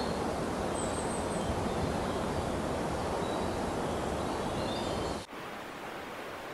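Steady outdoor ambient noise with strong low rumble, like wind in the open, with a few faint high bird chirps. About five seconds in it cuts suddenly to a quieter, thinner background hiss.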